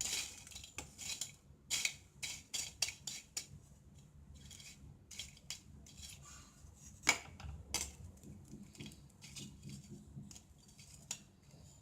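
A spatula stirring and scraping dry, crunchy bread crust pieces around a pan as they dry-roast. It makes a run of irregular clicks and scrapes, with the sharpest knock about seven seconds in.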